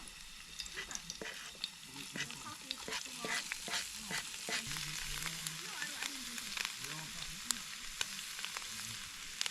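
Fritters frying in hot oil: a steady sizzle dotted with many small pops and crackles.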